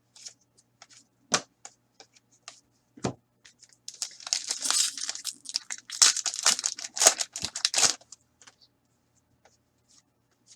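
A few light taps and clicks of card handling, then a Fleer Ultra hockey card pack's wrapper being torn open and crinkled for about four seconds.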